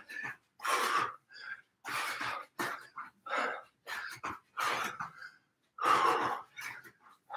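A man's heavy breathing while doing jumping jacks: short, forceful breathy exhalations of exertion, roughly one a second in an uneven rhythm.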